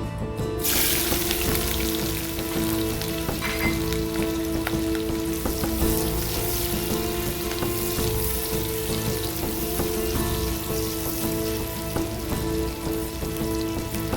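Food frying in hot oil in a pan: a steady sizzle that starts suddenly about half a second in.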